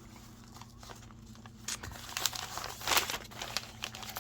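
Paper wrapping of a package handled and crinkled: quiet at first, then a run of sharp crackles from about a second and a half in.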